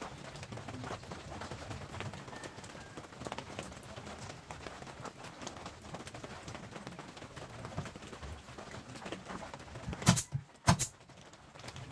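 Light knocks and scrapes of plywood pieces being handled and fitted into a speaker cabinet, then two sharp shots from a pneumatic nail gun about half a second apart near the end.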